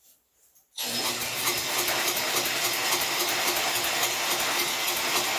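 Snowblower engine being cranked by its electric starter for about six seconds, with a fast even chugging, without firing. It starts suddenly and stops suddenly: the carburetor is not picking up fuel.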